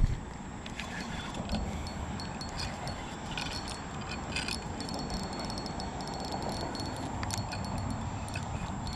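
Spinning reel on a blowgun fishing rig being wound and handled, giving scattered light clicks over a steady hiss. A thin, high, steady insect trill runs underneath.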